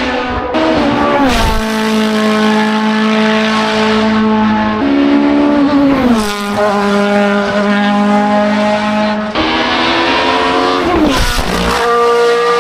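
Hill-climb race cars at full throttle, one after another. Their high-revving engine note holds steady and then drops sharply in pitch about a second in, around six seconds in and again around eleven seconds in.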